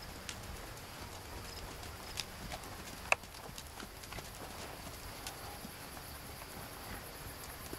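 Hoofbeats of a chestnut mare trotting on a sand arena, soft and irregular, with one sharp click about three seconds in.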